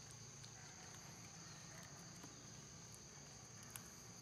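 Quiet forest ambience: a steady, high insect drone, with a few faint clicks.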